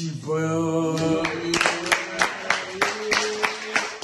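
Two people clapping their hands in a steady rhythm, about three claps a second, starting about a second in, after a drawn-out shout; a held vocal note carries on under the claps.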